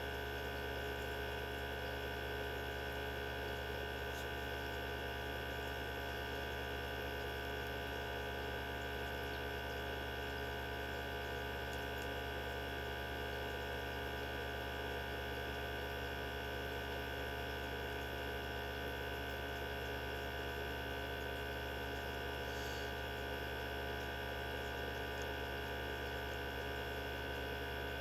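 Mini benchtop centrifuge running at a steady speed: a constant motor hum with several steady whining tones. It is spinning small tubes of cow blood to separate it into its components.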